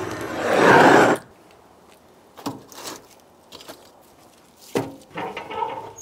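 Handheld gas torch flame blowing into an offset smoker's firebox to light the fire: a steady hiss that swells about a second in, then cuts off suddenly. After it, a few soft knocks and rustles.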